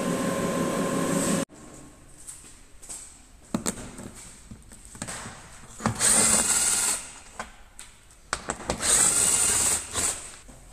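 A car lift's motor running steadily and cutting off sharply about a second and a half in. Then a few knocks on a plastic engine undertray and two bursts of about a second each from a cordless power drill/driver, taking out the undertray's fasteners.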